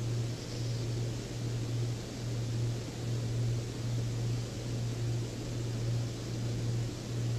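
Steady low machine hum over a faint hiss, swelling and fading gently about once a second.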